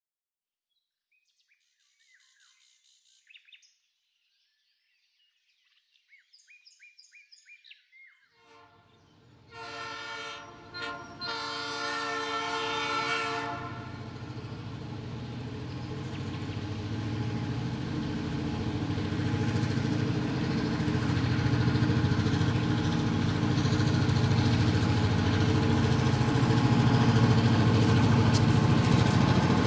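Faint bird chirps, then a diesel locomotive horn sounds twice, first briefly and then longer, about a third of the way in. After that comes the steady running of a diesel locomotive engine, growing louder toward the end.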